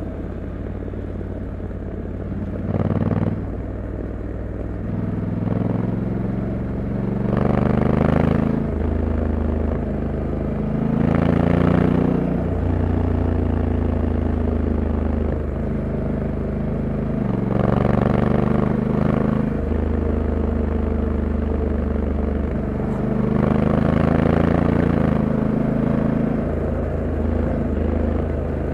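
Honda Africa Twin 1100 DCT's parallel-twin engine under way, its note rising under throttle and dropping back several times as the dual-clutch gearbox shifts itself in D mode.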